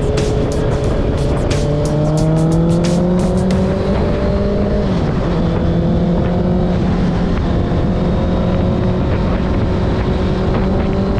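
Motorcycle engine pulling under way, over steady wind and road noise. The engine note climbs for a few seconds, drops briefly about five seconds in as it changes gear, then holds and rises slowly again. A few sharp clicks sound in the first few seconds.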